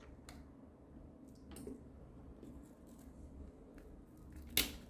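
Light clicks and taps of fingers handling a small clear plastic glitter container, then one loud sharp plastic snap near the end, the container's lid popping open.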